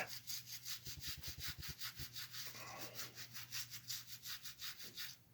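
Rapid back-and-forth scrubbing on a small HO-scale model locomotive part, about six strokes a second, as built-up grime is cleaned off by hand. The strokes stop just before the end.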